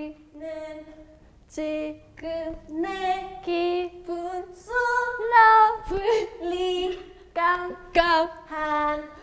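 Several young women singing a Korean pop song together unaccompanied, in short held phrases with brief pauses between them.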